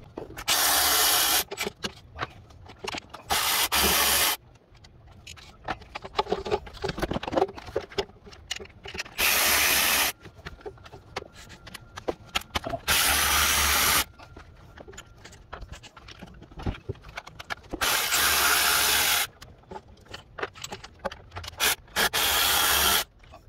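Cordless ratchet running in six short bursts of about a second each, backing out bolts on the engine's fuel rail area, with light clicks and scrapes of the tool and hand between bursts.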